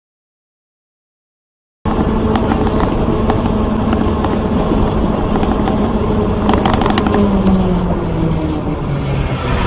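About two seconds of silence, then a vehicle driving, recorded by a dashcam behind the windshield: steady engine hum and road noise, with a few faint clicks. The engine's hum drops in pitch during the last few seconds.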